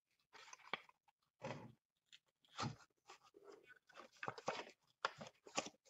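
Faint, scattered rustles and light clicks of hand work on a Briggs & Stratton small engine: the flywheel is turned by hand and a strip of paper card, used as the ignition coil's air-gap gauge, is slid out from between the flywheel magnet and the coil.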